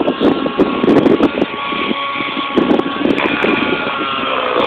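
Radio-controlled 3D aerobatic helicopter in flight: a steady high whine from its motor and rotors, falling in pitch near the end.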